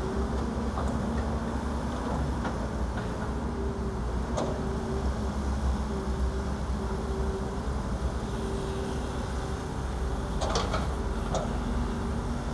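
Diesel engines of an excavator and dump trucks running steadily with a low drone and a steady whine. A few sharp knocks come through, one near the middle and two louder ones close together near the end.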